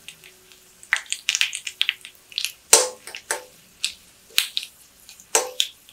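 Mustard seeds popping and spluttering in hot coconut oil with dried red chillies frying in it: irregular sharp crackles and pops, two louder ones about three and five and a half seconds in. This is the tempering (tadka) stage, the seeds bursting as they reach temperature.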